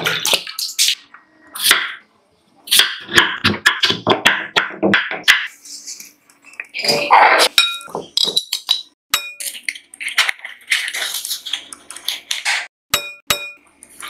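Kitchen food-prep sounds: water splashing over grated potato in a glass bowl, then a spoon clinking several times against a ceramic jar and the glass bowl with short ringing tones. Near the end comes a hand rustling grated potato through flour.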